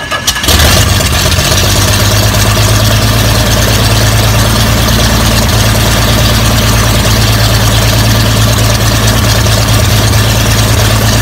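Corvair-based air-cooled flat-six aircraft engine starting: a few uneven bursts, then it catches within the first second and runs steadily with its propeller turning.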